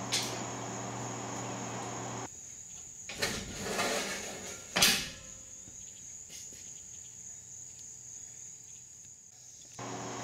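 Crickets chirping steadily while a horse trailer's stall divider is unlatched and swung across the stall. A latch click comes right at the start, then a metal knock about three seconds in and the loudest clunk a couple of seconds later.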